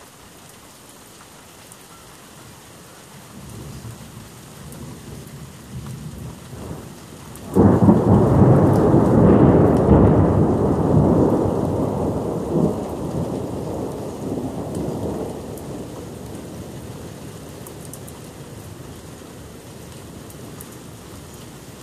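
Thunder: a low rumble builds from about three seconds in, then breaks into a sudden loud crash about halfway through. The crash rumbles on and slowly fades over several seconds, over steady rain.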